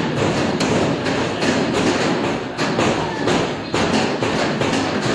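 Irregular thuds and knocks, about two a second, of noodle dough being pressed and slapped on stainless steel worktables, over the steady noise of a large busy room.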